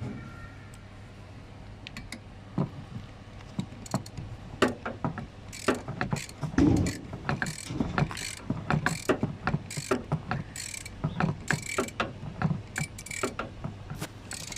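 Hand tools working on a car: irregular metallic clicks and clunks, a few a second, mixed with short scraping sounds.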